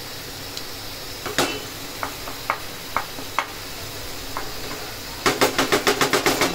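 Chicken keema with peas simmering in a frying pan, with a spatula knocking against the pan now and then. About five seconds in, the spatula strikes the pan in a quick, regular run of about eight strokes a second, louder than the rest.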